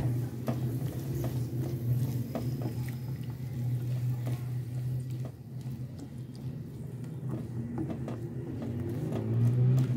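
A spatula stirring sliced vegetables around an oiled non-stick frying pan, with scattered soft scrapes and taps, over a steady low hum.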